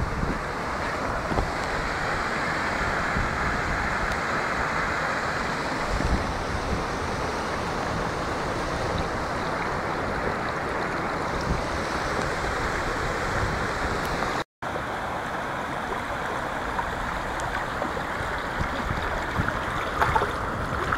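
Muddy floodwater rushing across a garden and yard in a steady wash, with wind buffeting the microphone. The sound cuts out for an instant about two-thirds through, and a few splashing steps through the water come near the end.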